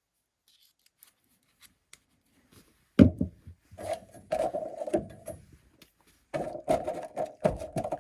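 Ratcheting screwdriver working a screw: a loud knock about three seconds in, then two runs of rapid ratchet clicks with a ringing tone under them.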